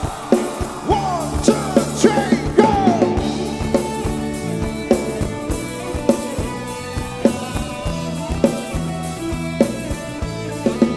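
Live band music with a steady drum kit beat, playing a passage between sung lines.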